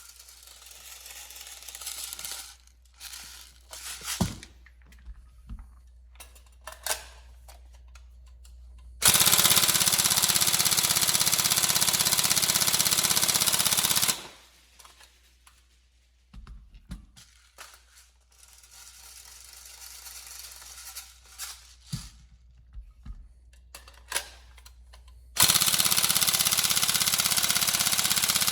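Tokyo Marui 416 Delta NGRS airsoft electric gun firing on full auto: one burst of about five seconds starting about nine seconds in, and another starting near the end. Between the bursts there are scattered clicks and handling noises.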